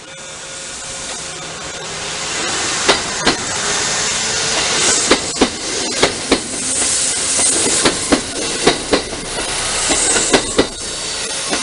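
Kintetsu Yunoyama Line train passing over the station level crossing. Its rolling noise builds over the first couple of seconds, and the wheels clack over the rail joints in pairs, one pair every second or two as each car goes by.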